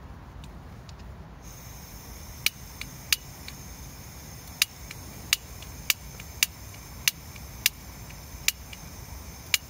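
Gas hissing from an OEX canister stove's burner, with about a dozen sharp piezo-igniter clicks, one every half second to second, as the stove is tried again and again. The burner does not light, which the owner puts down to the gas canister being temperamental in the cold.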